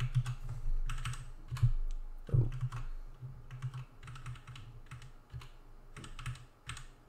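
Typing on a computer keyboard: quick, irregular runs of keystrokes.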